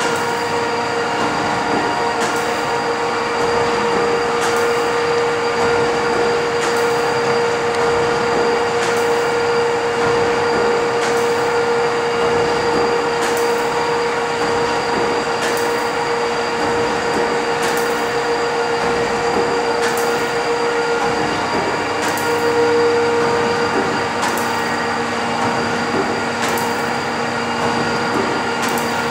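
1915 Crossley Brothers 150 hp single-cylinder gas engine running steadily: a constant mechanical hum with a short sharp tick about every two seconds.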